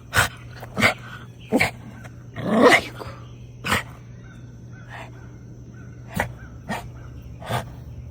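Dog barking: about eight short, separate barks at uneven spacing, one drawn out a little longer, over a low steady hum.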